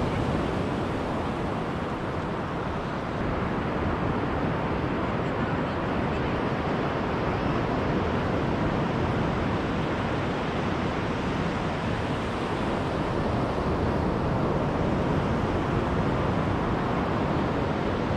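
Surf breaking and washing up a sandy beach, a steady rush of noise, with wind blowing on the microphone.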